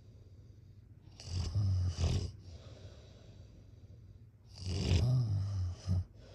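Snoring: two deep snores about three and a half seconds apart. Each ends in a short second snort.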